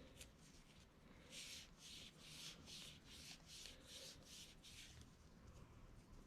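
Faint, rhythmic rubbing: about ten quick strokes of a cleaning cloth wiping the glass of a Canon EF 50mm f/2.5 Compact Macro lens, roughly three a second, stopping near the end.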